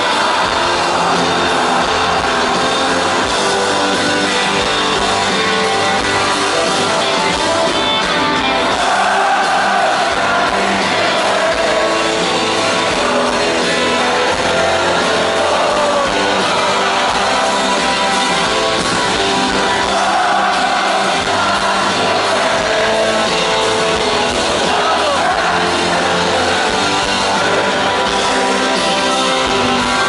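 Rock band playing live: electric guitars and drums at full volume, loud and continuous, with the echo of a large concert hall.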